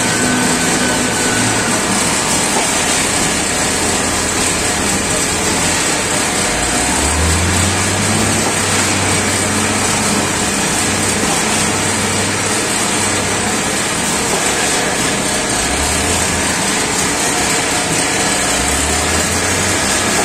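Steady din of an automatic bagging line and its roller conveyor running, with a constant high hiss and a low hum that swells in and out several times.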